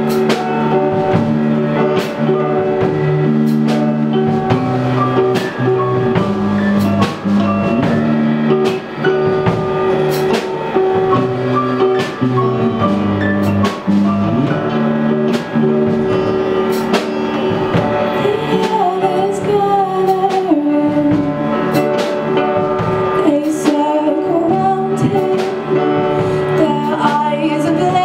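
Live pop-rock band playing: electric guitars, drum kit and piano, with regular drum hits. A female voice sings the melody over it from about two-thirds of the way through.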